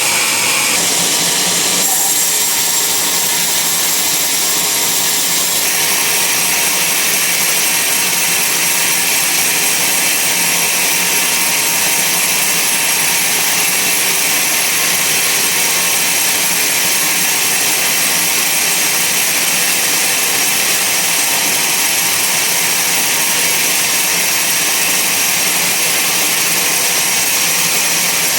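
Band sawmill running steadily, its blade cutting through a large log with a loud, even, high-pitched hiss and whine.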